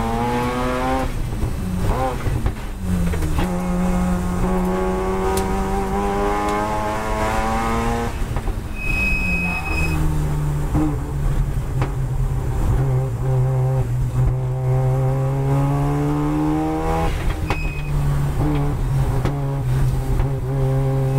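Mazda RX-7 FD3S race car's turbocharged rotary engine, heard inside the cabin, revving hard under acceleration. It rises in pitch, drops away at gear changes and braking several times, then climbs again. A brief high beep sounds about nine seconds in.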